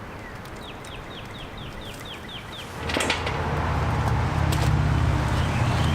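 A bird's quick series of about nine falling chirps, followed about three seconds in by a louder low, steady, engine-like rumble that holds on.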